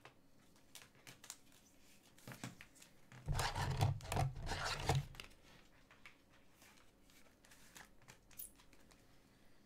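Trading cards and their packaging being handled by hand: light rustles and clicks, with a louder stretch of rubbing and scraping from about three to five seconds in.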